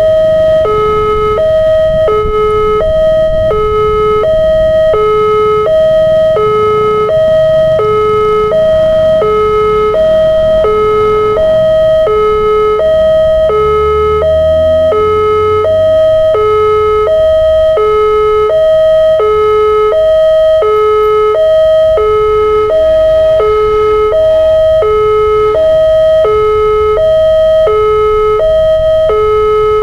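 Railway level crossing warning alarm sounding a repeated two-tone electronic chime, a high note then a low note, about one high-low cycle every second and a quarter. Under it runs a low rumble of road traffic, with an engine revving up near the middle.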